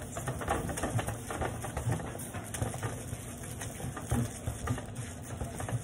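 A hand sanding pad with 3000-grit sandpaper rubbed back and forth over a wet plastic headlight lens: a quick, uneven run of scratchy strokes, several a second. It is the first sanding step of restoring a hazed headlight.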